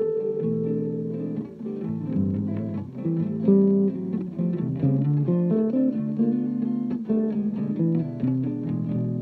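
Acoustic guitar playing gypsy jazz.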